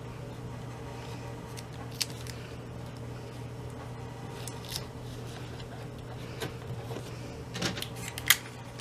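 Cardstock and a metal cutting die being handled and taped in place, giving scattered light clicks and paper rustles, the sharpest about two seconds in and near the end, over a steady low hum.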